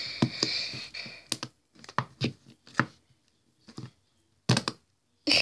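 Pink noise-putty slime being squeezed with fingers in its plastic tub: air pushing out with a hissing squelch, then a string of short wet pops and clicks at irregular intervals.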